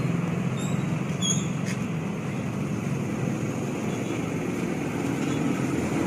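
Diesel bus engine running steadily at low speed with a low hum, with two short high chirps about a second in.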